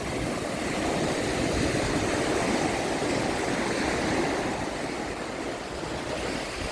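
Gulf of Mexico surf washing onto the beach, swelling about a second in and easing off again.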